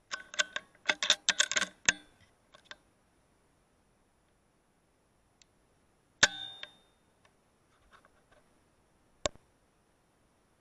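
A single sharp crack about six seconds in, the loudest sound and typical of an air rifle shot, with a short ringing tail. Before it comes a quick run of sharp clicks with a chattering ring in the first two seconds, and a lone sharp snap near the end.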